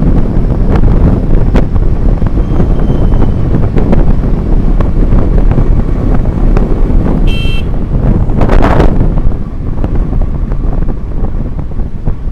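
Wind rushing over the microphone of a moving vehicle, with steady road rumble. A brief horn beep sounds about seven seconds in, followed by a short rush of noise.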